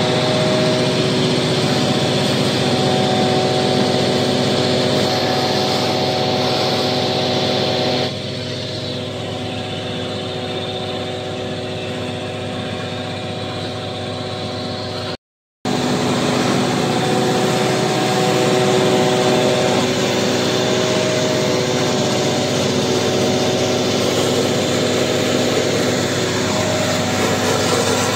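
Septic-tank vacuum truck's engine running steadily, powering the suction through the hose in the sewer drain. It drops a little in level about eight seconds in, cuts out briefly a little past halfway, then resumes.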